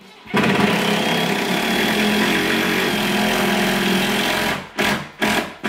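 Cordless impact driver driving a 2-inch screw through trim into a wall stud: it runs loud and steady for about four seconds, then gives three short bursts near the end as the screw is sunk into its countersunk hole. The loudness comes from the screw biting into the stud.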